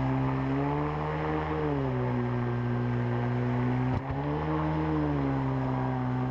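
Water-jet outboard motor of a Solar 420 jet inflatable boat running under load in shallow rapids, heard from aboard; its pitch rises and falls twice, with a brief break about four seconds in.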